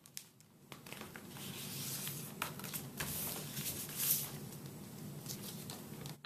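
A sheet of paper being folded and creased by hand, rustling and crinkling with small sharp crackles as the fold is pressed down.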